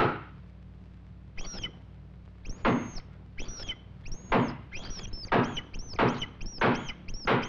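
Cartoon axe blows thunking into a wooden floor: a loud strike at the start, then a run of knocks that come faster and faster toward the end, each with a short ringing ping.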